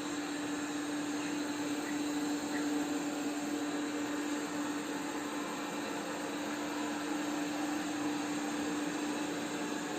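Polaris PVCR 3200 IQ Home Aqua robot vacuum cleaner running: a steady motor and suction hum with one constant low tone.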